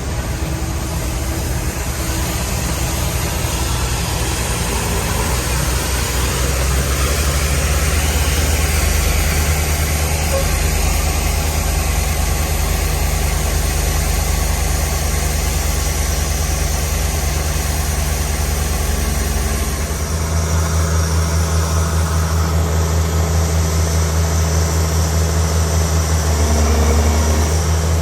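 Diesel engine of a large farm machine running steadily. Its low hum steps up in speed about seven seconds in and shifts again around twenty seconds.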